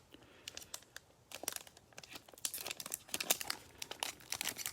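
Wrapper of a Panini Mosaic basketball card pack being torn open and crinkled in the hands: a quiet start, then a string of sharp crackles from about a second and a half in. The packs are tough and tear raggedly rather than ripping clean at the top.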